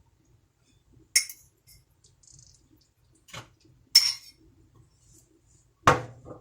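Cutlery clinking against a dish in a few separate strikes: sharp clinks about a second in and about four seconds in, a lighter one between, and a duller knock near the end.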